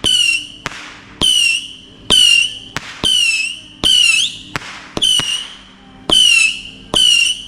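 Firework firing a string of whistling shots, about one a second: each a sharp crack followed by a shrill half-second whistle, eight in all.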